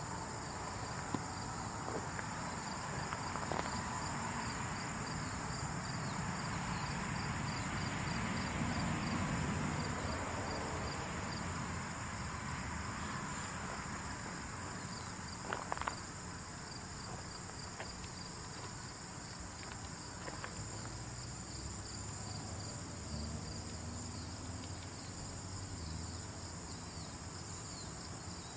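Insect chorus: crickets chirping in a fast, regular pulse over a steady high trill, with a soft rustling bed underneath. A few small clicks, bunched briefly about halfway through.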